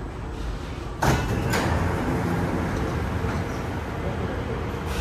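Inside a Singapore MRT train car: a sudden clunk about a second in, then a second one just after, followed by the train's steady running rumble with a faint hum.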